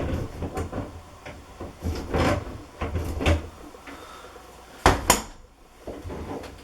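Handling noises as a washing-machine supply hose fitting is unscrewed from a water tap with channel-lock pliers: scattered scrapes and small knocks, with two sharp clacks close together about five seconds in.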